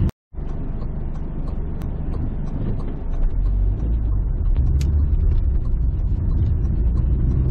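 Car engine and road noise heard inside the cabin: a steady low rumble while waiting at a traffic light, growing a little louder about three seconds in as the car pulls away.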